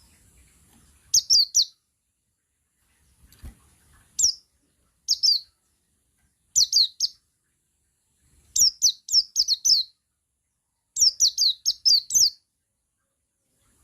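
Male white-eye (pleci buxtoni) singing: short phrases of quick, high, falling chirps, three to seven notes each, repeated every second or two with silent gaps. The longest runs come near the middle and about 11 seconds in.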